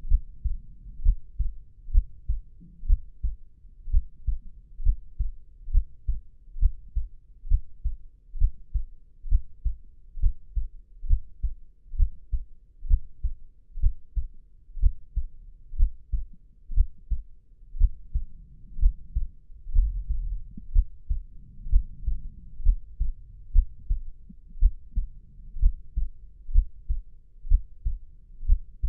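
Heartbeat, muffled and low, beating at a steady, slow, even pace.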